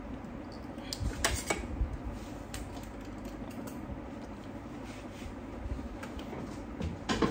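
Scattered light clicks and clatter from handling an alarm speaker's wire leads and terminals, over steady low background noise. The speaker itself gives no tone: its wiring is not yet right, with the polarity just reversed.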